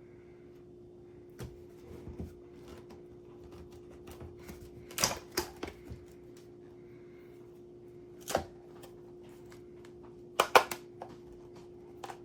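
Scattered sharp plastic clicks and knocks, singly and in short clusters, from the electric burr coffee grinder being handled just after grinding, over a faint steady hum.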